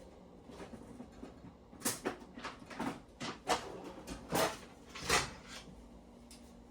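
Kitchen handling clatter: a string of about six separate knocks and clunks from containers and utensils being picked up and set down, spread over a few seconds in the middle.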